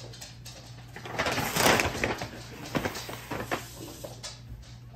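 A paper takeout bag rustles and crinkles as it is set down and slid into place on a wooden table, followed by a few light knocks. A low steady hum runs underneath.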